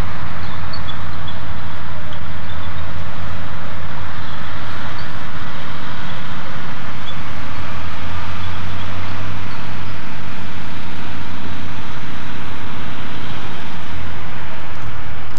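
Crawler bulldozer's diesel engine running steadily under load while the dozer pushes dirt, its note shifting slightly about ten seconds in.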